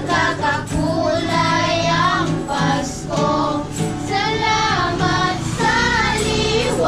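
A group of children and adults singing a Christmas carol together, accompanied by strummed acoustic guitar.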